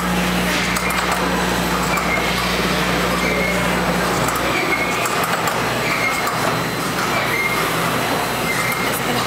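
Steady mechanical din of an automated toy assembly line running, with a short high beep every second or so over background chatter; a low hum cuts off about halfway through.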